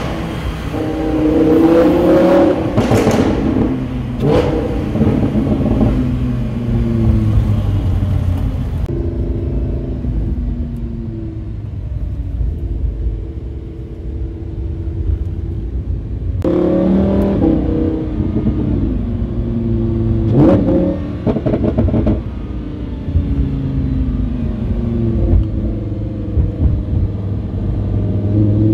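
Lamborghini Huracán's V10 engine heard from inside the cabin, revving and pulling through the gears, its pitch climbing and dropping again and again. The middle stretch runs steadier, then a sudden hard surge comes about two-thirds of the way through.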